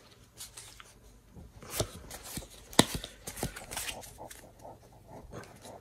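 A foil Pokémon trading-card booster pack being handled and opened by hand: scattered light crinkles and clicks of the wrapper.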